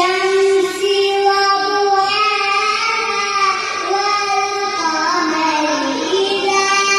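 A young child reciting the Quran in a melodic, drawn-out chant, holding long notes that glide slowly between pitches, with a dip in pitch a little before the end.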